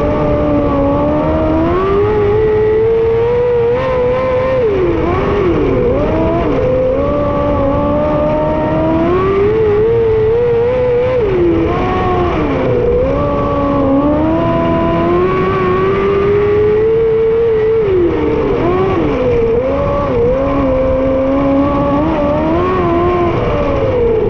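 A 600cc micro sprint car's motorcycle engine at racing speed, heard onboard: the pitch climbs along each straight and drops sharply as the throttle comes off for the turns, about every six seconds, over a steady low rumble.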